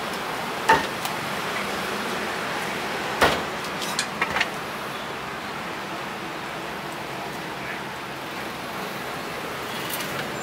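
A handful of sharp cleaver chops through roast duck onto a thick wooden chopping block in the first half, two of them loud, over steady street traffic noise; after that only the traffic noise goes on.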